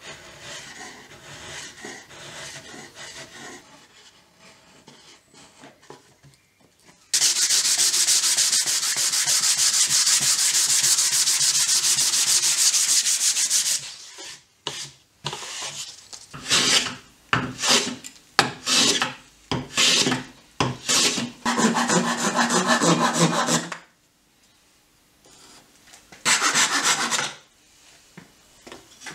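Hand sanding on the curved wooden lid of a pallet-wood chest: a long stretch of fast, loud back-and-forth rubbing, then separate slower strokes, with one more short burst near the end. At the start there is fainter scraping from a chisel paring the wood flush.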